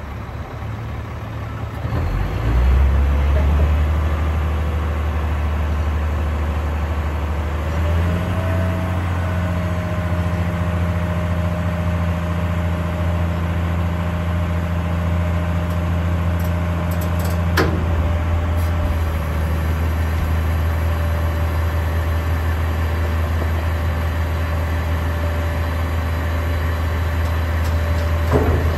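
Cat 730 articulated dump truck's diesel engine speeding up about two seconds in and running steadily at raised speed while the hydraulic hoist tips the dump body up and lowers it again, with a steady whine over the engine. A single sharp knock sounds about two-thirds of the way through.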